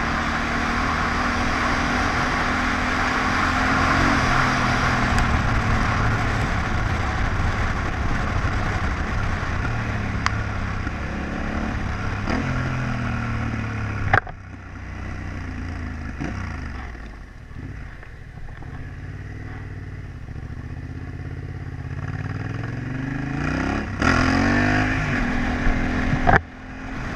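Yamaha Ténéré 700's parallel-twin engine running as the bike rides a gravel track, with wind and tyre noise over the engine note. About halfway the wind and road noise drop off suddenly and the engine note falls as the bike slows, then the engine note rises again as it accelerates near the end.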